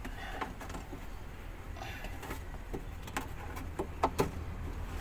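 Scattered light clicks and knocks of metal parts being handled under a truck, with a few sharper knocks about three to four seconds in, over a low steady hum.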